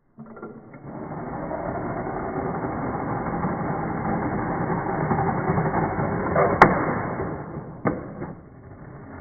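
Scalextric slot car running along the plastic track, its running noise growing louder, then a sharp crack about six and a half seconds in as the car crashes, followed by a second knock a little over a second later.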